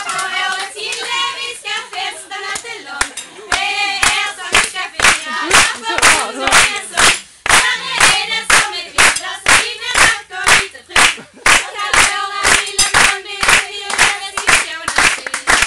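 A small group of women singing a song together, with the audience clapping along in a steady rhythm of about two claps a second. The singing starts alone and the rhythmic clapping joins in about three seconds in, the claps being the loudest sound.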